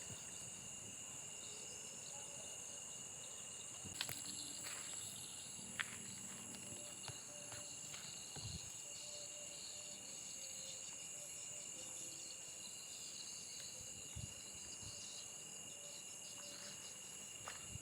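Steady chorus of night insects, crickets trilling as unbroken high-pitched tones. A couple of sharp clicks sound about four and six seconds in.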